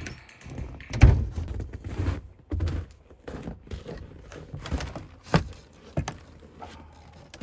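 Footsteps on a snowy wooden deck and a wooden Adirondack chair knocking as a person steps into it and sits down: a string of separate thumps and knocks, the loudest about a second in.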